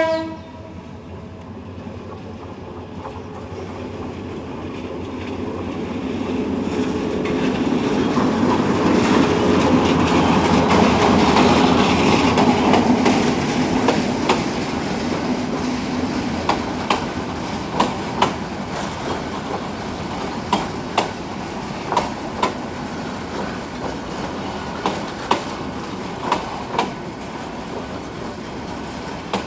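A diesel-hauled passenger train approaches and passes close by. The locomotive's engine and wheel rumble swell to a peak about midway, then the coaches roll past with a steady clickety-clack of wheels over the rail joints.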